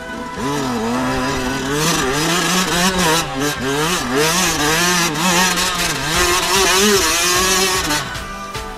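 Dirt bike engine revving hard and unevenly as the bike climbs a steep rocky track, its pitch rising and falling with the throttle. It comes in about half a second in and drops away near the end.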